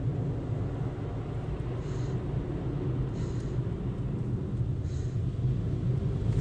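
Automatic car wash running, heard from inside the car's cabin: a steady low rumble of water spray and machinery on the car, with a few faint brief hisses.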